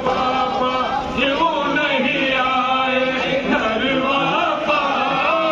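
A group of men chanting a noha, a Shia lament, together into microphones: several male voices singing a slow, wavering melody.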